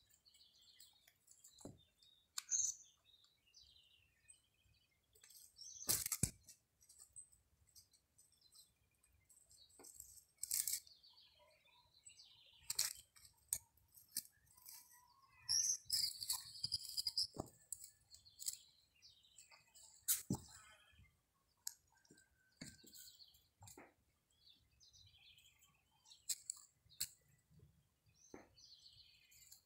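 Small birds chirping now and then, with scattered sharp knocks and rustles as kittens scramble over and under an upturned plastic lid in dry straw.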